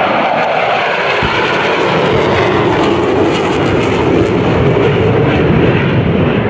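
F/A-18 Super Hornet jets with twin turbofan engines passing low, a loud steady jet roar. Over the first second or so its whine falls in pitch as they go by. There is a low thump about a second in.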